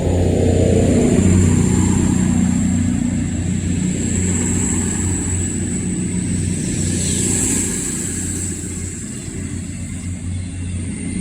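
CrossCountry Class 221 Super Voyager diesel-electric unit pulling out, its underfloor diesel engines running under load with a steady low drone and a high whine. It grows fainter near the end as the train draws away.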